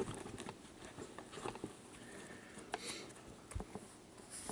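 Faint handling noises: scattered light taps and rustles of cards and a hand at a desk, and a brief scratch of a felt-tip marker writing on paper near the end.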